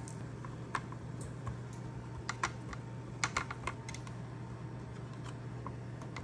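Scattered light clicks and taps from handling a plastic sprinkle shaker and dough over a metal baking sheet, bunched in quick little clusters in the first half, over a steady low hum.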